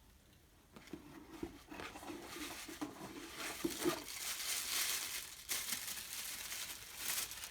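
Product packaging crinkling and rustling as it is handled and unwrapped, starting about a second in.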